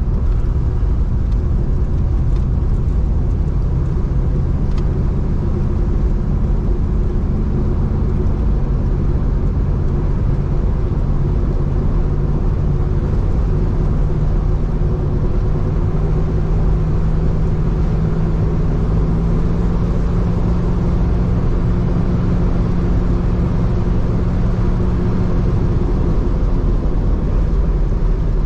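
The 1977 Chevrolet Camaro's 305 V8 pulls steadily under way, a continuous engine drone over road noise. The engine note rises about halfway through, holds there, and eases back near the end.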